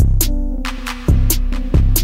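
Background music with a steady beat: deep bass thumps and sharp high hits over held notes.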